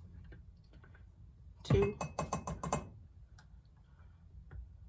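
A plastic spoon scooping chili paste out of a glass jar: a quick run of clicks and taps against the glass about two seconds in, with fainter scrapes and ticks around it.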